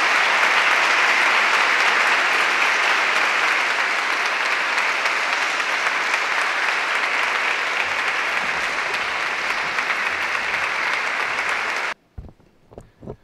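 Audience applauding steadily, a dense even clapping from many hands; it cuts off abruptly about twelve seconds in.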